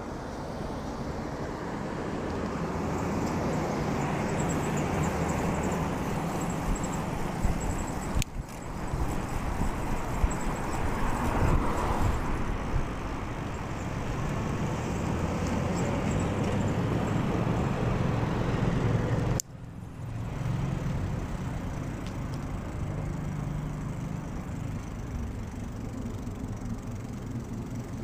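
Wind and road noise on a cyclist's clip-on mic while riding, with car traffic going by. The sound drops out briefly twice.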